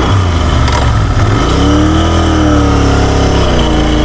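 Royal Enfield 650's parallel-twin engine pulling away from a standstill. Its note rises about a second and a half in as the bike accelerates, dips briefly near the end and climbs again, over wind and road noise.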